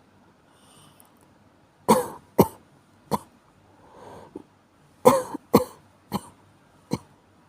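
A person with a cold coughing in two fits: three sharp coughs, a drawn breath, then four more coughs.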